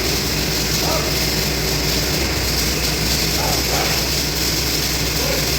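Steady industrial shop background noise: a constant low hum with a hiss over it, unchanging throughout.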